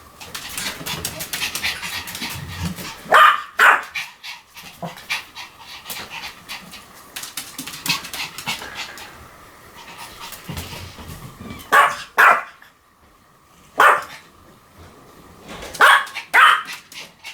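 Pomeranian panting fast, broken by short, sharp barks: a pair about three seconds in, another pair about twelve seconds in, a single bark soon after, and a last pair near the end.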